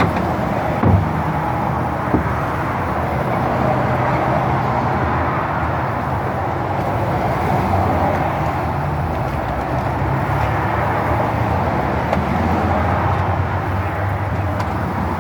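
A motor running steadily, with a few short knocks in the first couple of seconds.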